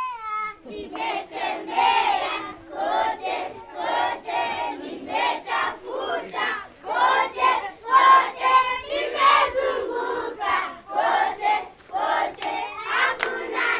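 A group of children singing together in unison in short, rhythmic phrases.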